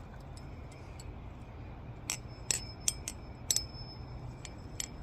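Balisong (butterfly knife) being flipped: sharp metallic clicks of the handles and blade, about seven of them in the second half, some with a brief high ring. The knife is tight, with no rattle.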